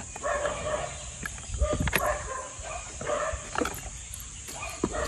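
A dog whining and yipping in short, repeated calls, with a few small clicks from the packaging being handled.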